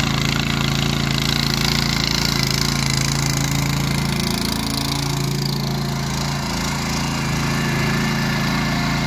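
Petrol walk-behind rotary tiller's 8.5-horsepower engine running steadily under load as its tines churn through soil. The engine note dips briefly about halfway through, then recovers.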